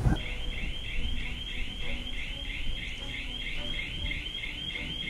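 Electronic alarm sounding in a rapid train of short rising chirps, about four or five a second.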